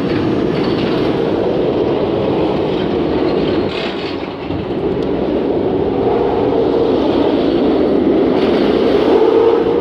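RailBlazer, an RMC single-rail roller coaster, running a test cycle: a steady rumble of the train on its track, dipping briefly about four seconds in.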